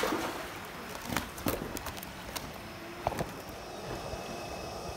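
A few scattered knocks and slaps as a dip net full of live fish is handled over a plastic basin, then a steady background.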